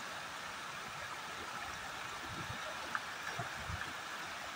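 Steady rush of a small river's flowing water, with a few soft low thumps and a click in the second half.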